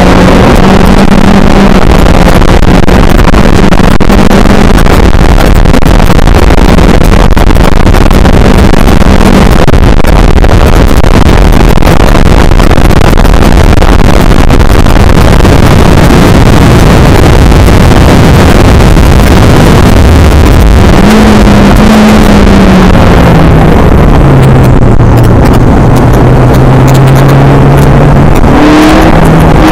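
Onboard sound of a Skip Barber race car at speed, very loud and overloaded: the engine note holds steady under heavy wind and road roar. Around two-thirds of the way through the revs fall, then they climb sharply again near the end as the car accelerates.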